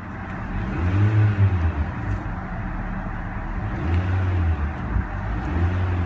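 2016 Honda Civic EX's 2.0-litre inline-four running in park and revved three times, each a short rise to around 3,000 rpm and back down to idle.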